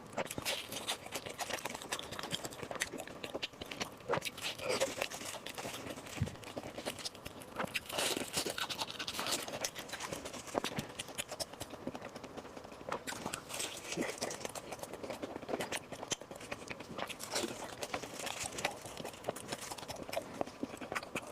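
A person chewing and biting food, with many short, irregular clicks.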